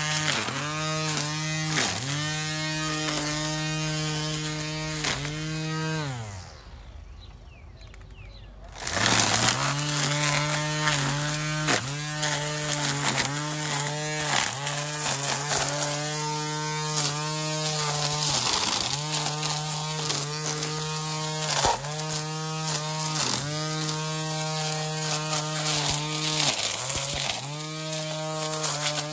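Hart 40V cordless string trimmer's electric motor running with a steady high whine, its pitch dipping briefly every second or two as the line bites into the growth. About six seconds in it winds down and stops, then spins back up about three seconds later.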